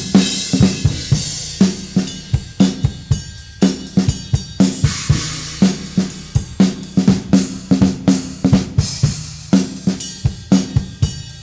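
A 2007 Pearl Vision VSX birch drum kit played in a steady groove. The bass drum, hi-hat and snare carry the beat, and the snare is a thick-shelled Huntington Beach Drum Co. drum with a heavy Remo Emperor X head. Cymbal crashes come in every few seconds.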